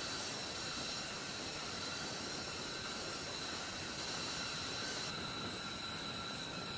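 Steady rushing hiss with several high, even whining tones from machinery running on an airfield flight line, holding level throughout.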